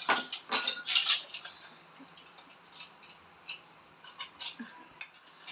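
Metal kitchen utensils clinking and clattering as they are picked up and handled, a quick cluster of clinks in the first second or so, then a few scattered, fainter clicks.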